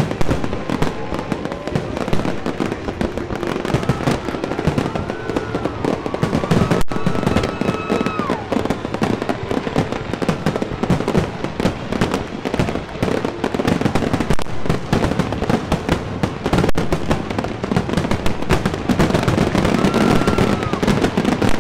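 Fireworks display: a dense, unbroken barrage of bangs and crackling bursts, many shells going off in quick succession.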